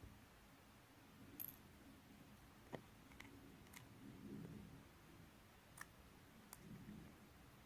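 Near silence with a handful of faint, scattered small clicks, about six over several seconds.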